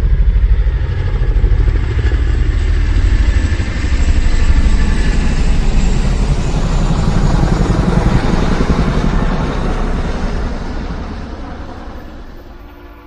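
A loud vehicle engine running with a pulsing low rumble, fading away over the last few seconds.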